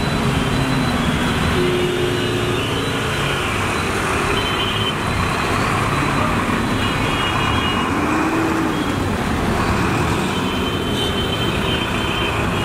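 Steady traffic noise on a flooded road: a bus, cars and motorcycles running as they wade through deep floodwater, with water washing around their wheels. A few brief tones sound over it.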